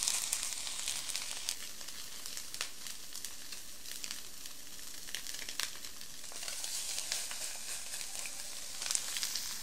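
Salmon patties frying in avocado oil in a skillet over medium-high heat: a steady sizzle with scattered crackles, swelling near the start and again toward the end.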